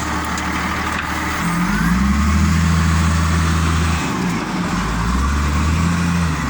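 Caterpillar 938G wheel loader's diesel engine running, freshly started, revving up about a second and a half in, holding, settling back about four seconds in, then revving again briefly near the end.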